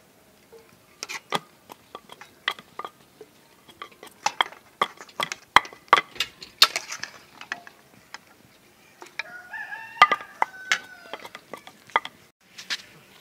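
Metal ladle clinking and scraping against an aluminium cooking pot and a bowl as curry is served out, a quick run of short sharp clinks. A rooster crows about nine seconds in.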